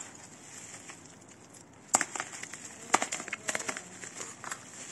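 Plastic bubble wrap being handled and cut open around a box: crinkling and crackling, with sharp snaps about two and three seconds in.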